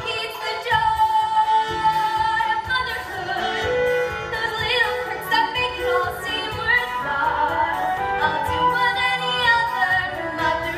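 A woman singing a musical-theatre song with held, wavering notes over instrumental accompaniment.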